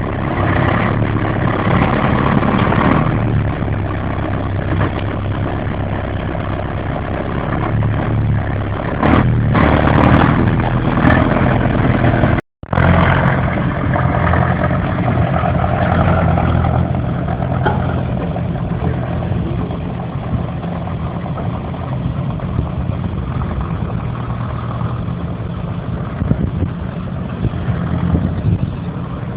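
Engine of a TTM-3902GR tracked all-terrain vehicle running as it drives off, being run in after a repair, with a steady low drone that swells twice. The sound cuts out completely for a split second about twelve seconds in.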